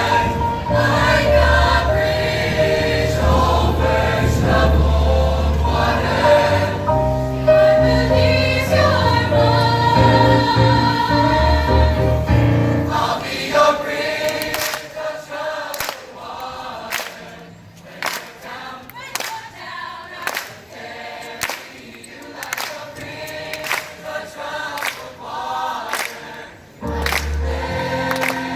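A choir singing with musical accompaniment. About halfway through, the bass drops out, leaving a quieter, sparser passage marked by sharp regular hits. The full bass accompaniment comes back near the end.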